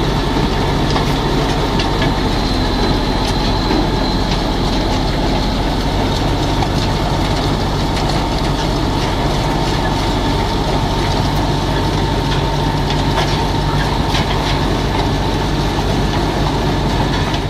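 An engine running steadily, with rattles and clicks over a low hum.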